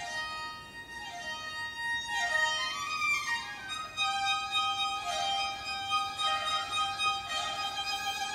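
Baroque string music led by a solo violin, played from CD through a Williamson-design tube amplifier with UTC LS-57 output transformers and EL34 output valves and heard from loudspeakers in the room. Quick falling violin runs give way to longer held notes about four seconds in.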